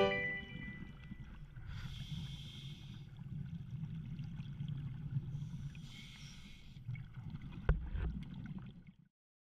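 Underwater sound picked up through a camera housing: a low, steady rumble, with two hissing bursts of exhaled bubbles from a scuba regulator, about two and six seconds in, and a single knock near the end.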